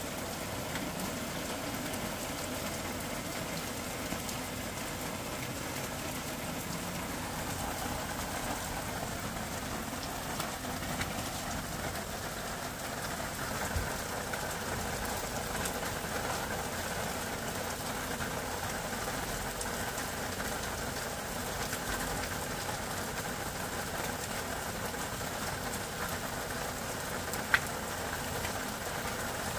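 Sliced onions and garlic sizzling in oil in a frying pan, with a few sharp knocks of a spatula against the pan, the loudest near the end. About halfway through, water is poured in and the onions go on cooking with a steady bubbling sizzle.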